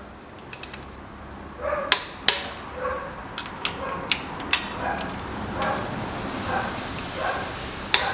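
Sharp metallic clicks and clacks of a socket wrench and extension on the cylinder head bolts of a Toyota 3S-FE engine as they are torqued to 49 N·m, the two loudest about two seconds in. A dog barks repeatedly in the background.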